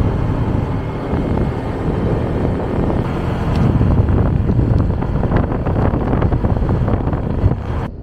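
Wind rumbling on the microphone while a motor scooter rides at speed, mixed with the scooter's running and road noise.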